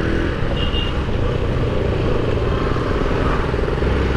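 Yamaha FZ's single-cylinder engine running steadily while the motorcycle is ridden, with steady wind and road noise.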